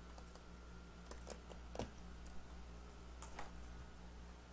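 Faint clicks and taps of hands handling a TekPower TP9605BT multimeter, working at its tight battery compartment cover, over a low steady hum.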